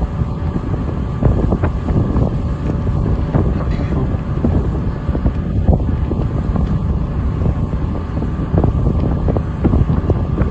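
Tour boat under way: a steady low rumble of the boat running through the water, with wind buffeting the microphone.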